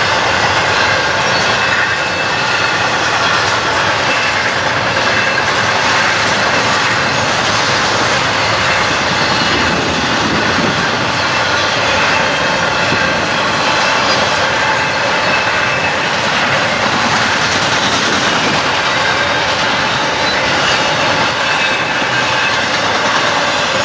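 A train rolling past close by: a steady, loud rush of steel wheels on the rails that keeps up without a break.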